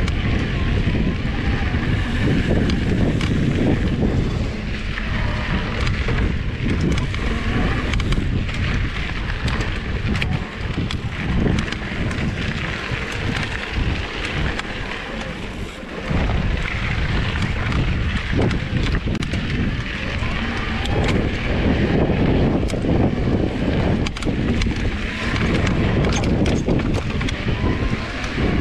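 Mountain bike riding a dry dirt singletrack: wind buffets the camera microphone while the tyres rumble over dirt and rocks, and the bike clatters over bumps in many short knocks. The noise eases for a few seconds in the middle.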